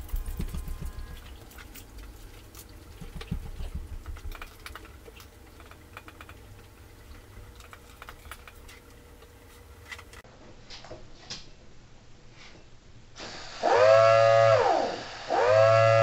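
Small 3D-printed Thunderbolt tornado siren model sounding two short blasts near the end, with air from a balloon blowing into it. Each wail winds up quickly and falls straight back down, because the chopper motor has no supercapacitor on it yet. Before the blasts there is softer rattling and clicking.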